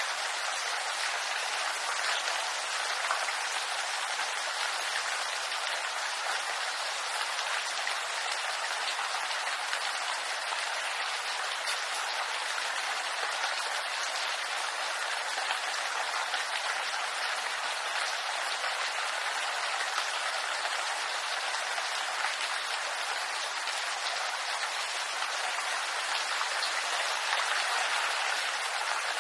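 Steady rain falling on a bamboo grove: an even, unbroken hiss of drops on the leaves.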